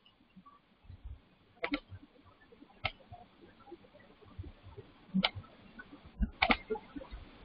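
Computer mouse clicks: four sharp clicks a second or more apart, the first and last each a quick double click.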